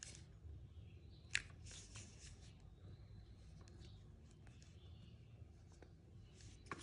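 Quiet handling noise of hands working a crocheted piece and a hot glue gun: faint rustles and light ticks, with one sharper click about a second and a half in, over a low steady hum.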